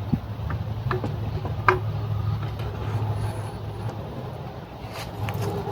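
A steady low rumble that slowly fades, with a few light clicks and taps from bicycle headset parts being handled, one sharper click about two seconds in.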